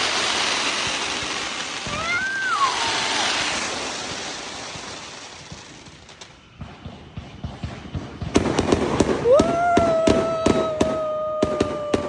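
Fireworks: a dense crackling hiss that fades away over the first half, then a rapid string of sharp pops starting about eight seconds in, joined just after by a long, steady whistle.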